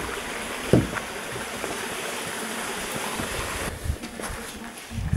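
Steady rushing noise of flowing water. It fades down about three and a half seconds in, with a single knock just under a second in.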